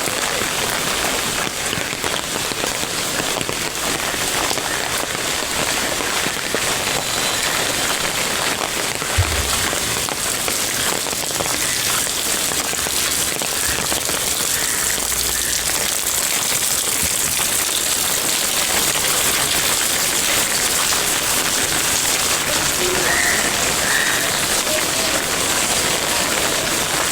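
Heavy rain falling steadily, a dense even hiss of drops striking surfaces close by. A single brief low thump about nine seconds in.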